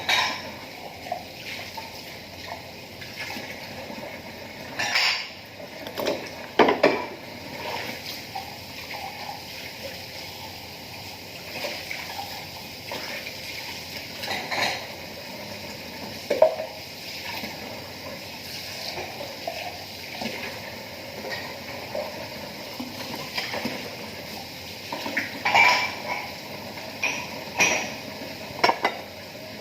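Tap water running steadily while dishes are rinsed by hand, with plates and cutlery clattering against each other several times.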